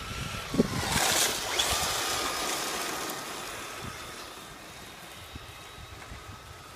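Electric radio-controlled trucks running on gravel: a high motor whine with the hiss and crunch of tyres on gravel, loudest about a second in as they pass close, then fading away.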